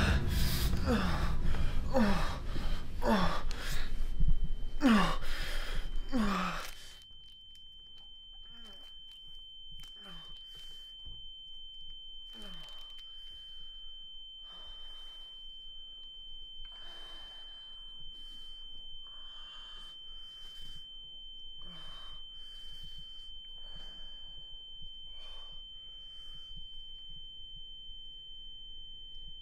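A loud, low, pulsing sound with a falling pitch glide about once a second cuts off suddenly about seven seconds in. What follows is quiet: a man's ragged, heavy breathing and gasps over a steady high ringing tone.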